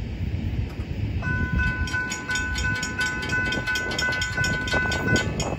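Railroad crossing bell ringing at about three strikes a second, starting about a second in and stopping near the end, as the crossing gates lift after the train has cleared. Under it is a low rumble.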